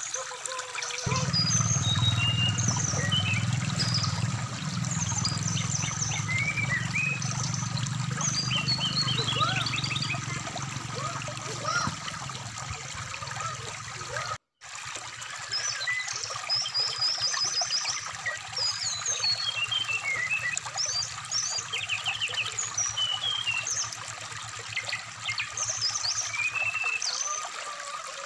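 Brown-chested jungle flycatcher song: a run of quick chirps, short trills and whistles, over the steady babble of a running stream. The audio cuts out completely for a moment about halfway through.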